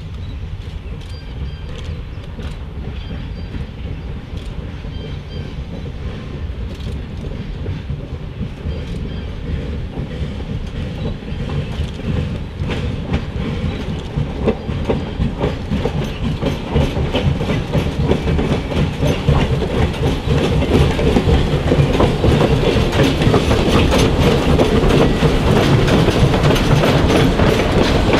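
A 4-4-0 American-type steam locomotive, York #17, approaching with its wooden coach and growing steadily louder as it nears. In the second half, as the train comes alongside, its wheels click over the rail joints.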